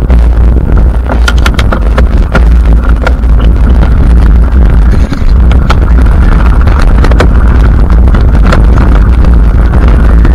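Mountain bike ridden fast down a dirt and rock singletrack, heard from a bike- or helmet-mounted camera: heavy wind rumble on the microphone, tyres crunching over dirt and loose rock, and frequent sharp rattles and knocks as the bike and camera mount jolt over bumps.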